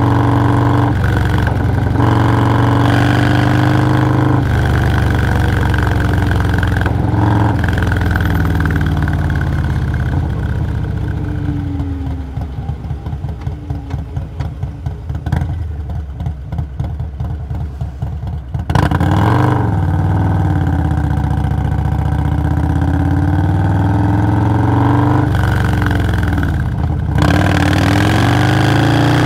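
Harley-Davidson Milwaukee-Eight 117 V-twin with a Stage 2 tune, running under way on a Low Rider S. Partway through, the engine note falls and drops to a slow, pulsing low beat for several seconds. About 19 s in it comes back sharply loud, and the pitch then climbs and falls as the bike pulls away through the gears.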